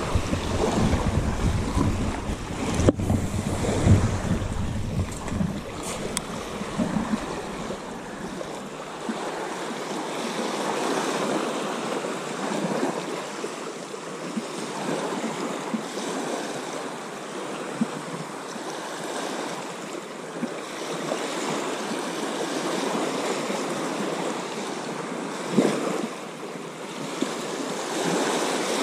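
Small sea waves lapping and washing up a sandy beach, with wind buffeting the microphone for the first eight seconds or so.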